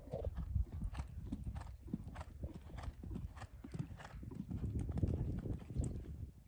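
Hoofbeats of a horse cantering on a sand arena: a run of muffled thuds and knocks, with the horse approaching and taking a jump near the end.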